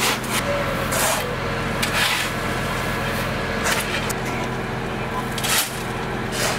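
Truck engine running steadily, with about five short scraping noises over it.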